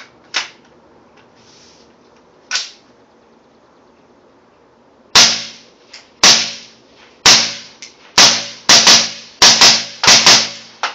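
Ten suppressed .223 rifle shots from an 11-inch-barrel AR-15 short-barrel rifle fitted with a Yankee Hill suppressor, starting about five seconds in. The first four come about a second apart, the rest quicker. Two sharp clicks sound in the first few seconds.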